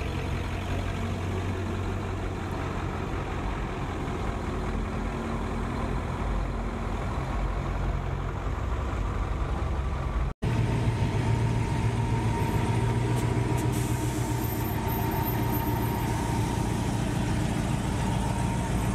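A lifted 1990s Ford crew-cab pickup's engine running as the truck rolls slowly past. After a sudden cut about ten seconds in, a lowered square-body Chevrolet crew-cab's engine runs steadily and a little louder.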